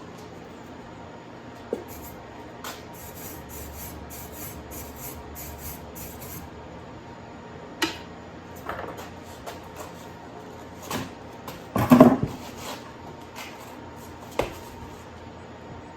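Scattered clicks, knocks and metallic clatter of tools and metal parts being handled, over a steady faint hum. The loudest burst of clatter comes about twelve seconds in.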